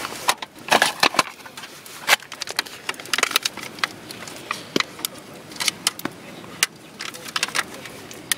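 A Stonebridge brass folding candle lantern being folded up by hand: irregular metallic clicks and short rattles as its hinged panels are worked shut.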